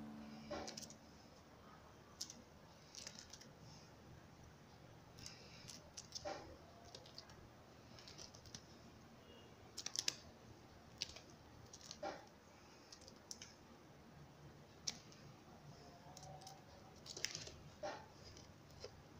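Faint, irregular clicks and light scratches at close range, a few at a time, with a handful of sharper ones about halfway through and near the end.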